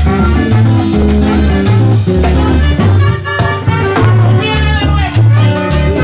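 Live Latin tropical dance band playing an up-tempo number, with a strong bass line repeating in even steps under keyboard lines.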